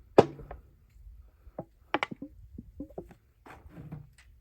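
Handling clatter from a resin can and tools: one sharp knock just after the start, then a run of lighter, scattered clicks and taps.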